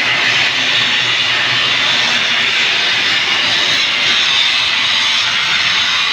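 Angle grinder grinding steel: a steady, loud, hissing noise with no pauses.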